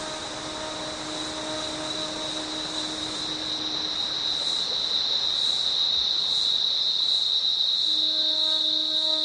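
A steady, high-pitched insect chorus that grows louder, with a faint pulsing about once a second. Under it are soft, held notes of background music, which drop out in the middle and come back near the end.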